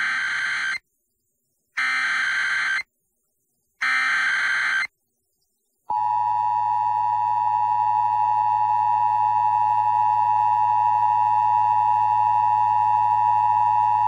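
Emergency Alert System test on FM radio: three short bursts of SAME header data, a raspy warbling screech about a second each with a second's gap, then, about six seconds in, the steady two-tone EAS attention signal starts and holds.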